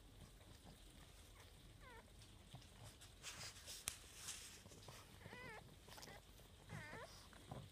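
Newborn pug puppies giving faint, high, mewling squeaks: three short calls, about two seconds in, around five and a half seconds, and near the end. A sharp click with some rustling comes about four seconds in.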